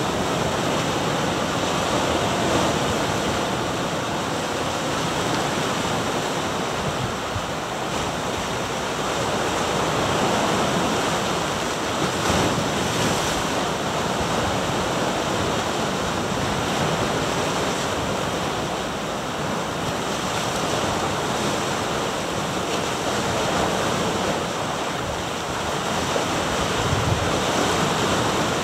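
Ocean waves breaking and washing over granite shore rocks, a continuous surf sound that swells and eases every several seconds.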